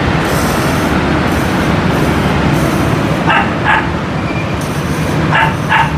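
A small dog yipping in two quick pairs of short barks, about three seconds in and again near the end, over a steady rumble of street traffic.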